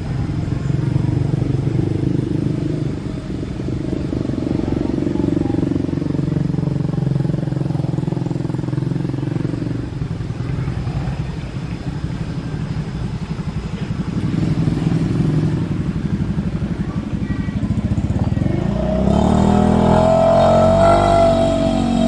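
CC201-class diesel-electric locomotive's engine running steadily at low revs while the train stands at the station. About three seconds before the end it revs up louder as the locomotive pulls away.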